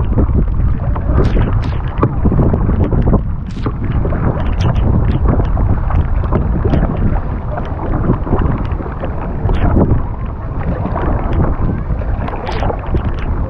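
Wind rumbling on the microphone, with scattered splashes of a kayak paddle dipping into the water.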